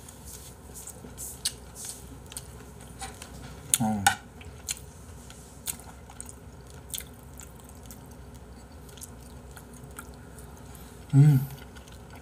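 Mukbang eating sounds: chewing and a metal spoon clicking against the bowl as spicy seafood soup with rice (jjamppong-bap) is scooped up and eaten. Two short murmured voice sounds, about four seconds in and near the end.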